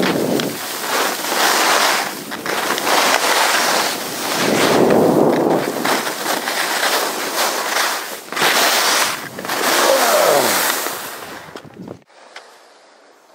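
Wind rushing over the microphone of a camera carried by a downhill skier, mixed with skis scraping over packed snow, swelling and easing with each turn. It cuts off abruptly about twelve seconds in, leaving only faint background.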